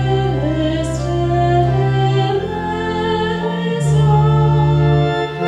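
Voices singing a liturgy chant over sustained church organ chords, the organ changing chord a few times while the singing carries the melody.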